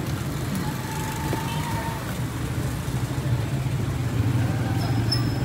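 Street traffic noise with an engine running steadily close by, a low pulsing rumble. A faint thin tone sounds briefly about a second in.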